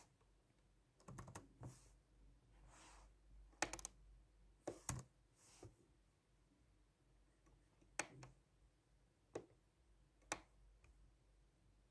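Near silence broken by a few faint, sharp clicks and taps at irregular intervals, with a quick little cluster of them about a third of the way in: hands working keys or a pen at a desk.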